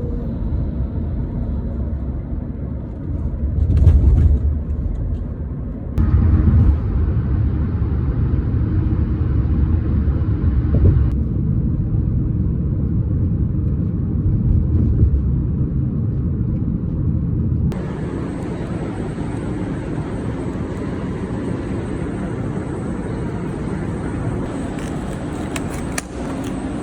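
Steady low vehicle rumble in a few short clips that change abruptly, with a brief louder swell about four seconds in.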